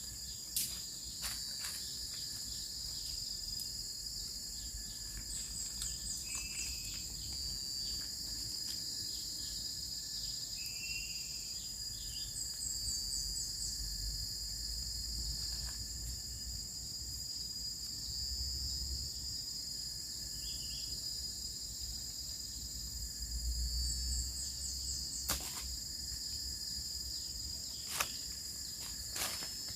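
Steady high-pitched insect chorus of crickets or cicadas in a garden, with a short call repeating about every five or six seconds. A few sharp knocks stand out, mostly near the end.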